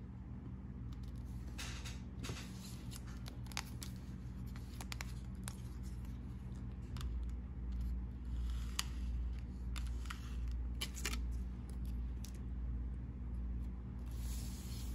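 A plastic card scraper drawn in several short strokes across a steel nail-stamping plate, scraping off excess polish, over a steady low hum.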